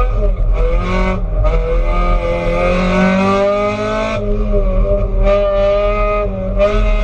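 Race car engine heard from inside its stripped, roll-caged cabin, driven hard on track, its note rising and falling in pitch, with the harsher hiss over it dropping out briefly three times.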